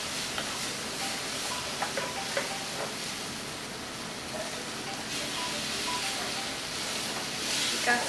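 Curry base of onions, tomatoes and spices sizzling as it fries in a pot, stirred with a wooden spatula. The spatula knocks and scrapes against the pot a few times about two seconds in and again near the end.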